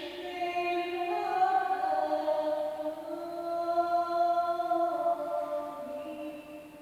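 A single unaccompanied voice singing long, held notes in a reverberant hall, each note ringing on in the room's echo. The pitch steps to a new note a few times, and the sound fades away near the end.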